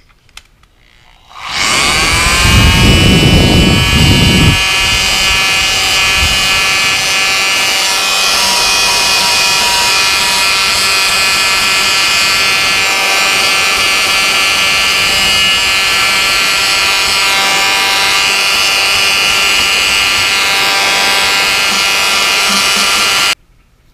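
Oscillating multi-tool with an 80-grit sanding pad switched on about a second and a half in, rising quickly to speed, then running steadily as it sands down hardened fiberglass resin on a plastic lid. It cuts off suddenly just before the end.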